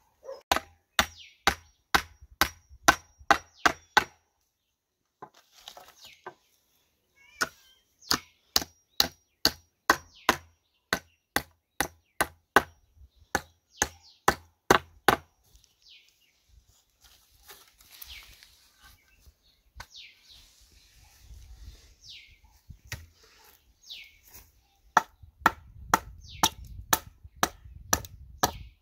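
Steel hammer striking a wooden board in runs of sharp blows, about two to three a second, with a quieter stretch in the middle. Near the end, blows from a hand axe on a wooden post.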